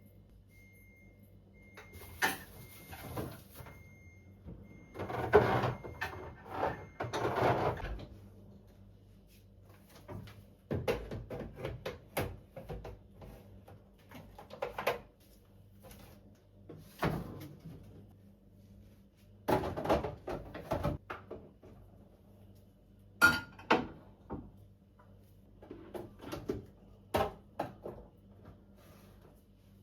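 Groceries and containers being put into a refrigerator: scattered knocks, clinks and rustles of packaging set onto shelves and into drawers. A faint high beep repeats through the first seven seconds or so.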